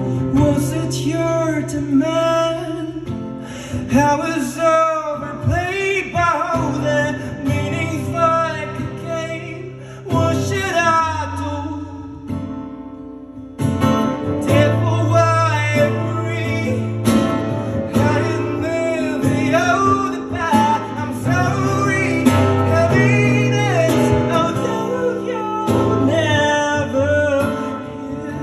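A man singing with an acoustic guitar. The sound drops away briefly about twelve seconds in, then voice and guitar come back in together.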